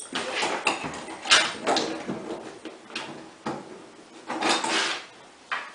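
A dog scratching and pawing at a closed panelled door, its claws scraping and knocking on the door in irregular bursts, loudest about a second in and again between four and five seconds in.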